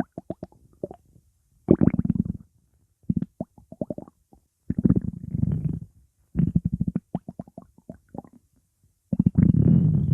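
Stomach growling: gurgling rumbles in repeated bursts about a second long, each made of rapid pops, with short gaps between them.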